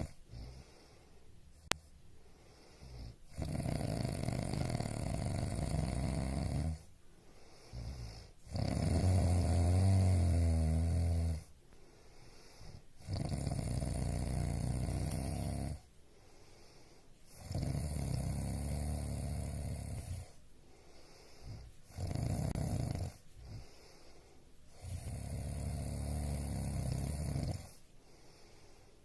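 A person snoring: about six long snores of roughly three seconds each, repeating every four to five seconds with quieter breaths between. The snore about ten seconds in is the loudest and deepest. A single sharp click comes near the start.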